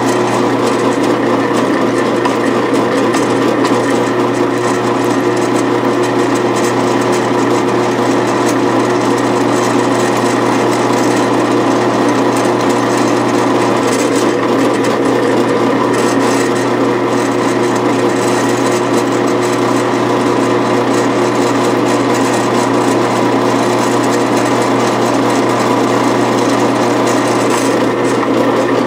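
Drill press running steadily with its bit cutting dry into an aluminum cylinder-head blank: a constant motor hum under a continuous scraping of the cut.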